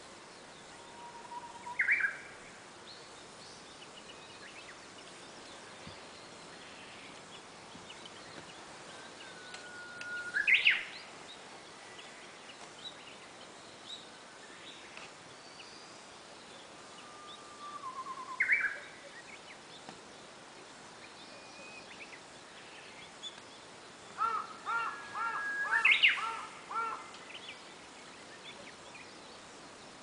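Japanese bush warbler (uguisu) singing its 'hoo-hokekyo' song three times, each a held whistled note that breaks into a quick rising flourish. Near the end comes a rapid string of repeated notes, with faint chirps of other birds between the songs.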